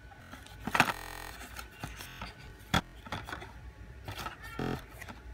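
A cardboard box with plastic packaging being handled and moved across a desk: rustling, short scrapes and several knocks and clicks, the loudest about a second in.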